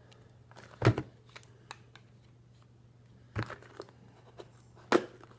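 A plastic postal package being handled and torn open by hand, without a knife: scattered crinkling and small clicks, with sharp rips about a second in and near the end.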